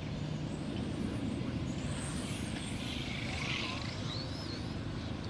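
Faint high whines of electric RC cars' motors rising and falling as they run on the track, over a steady low rumble.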